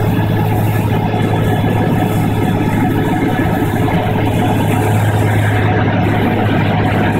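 Cessna 185's piston engine and propeller running steadily in flight, heard from inside the cabin: a strong, even low hum over a broad, loud rush.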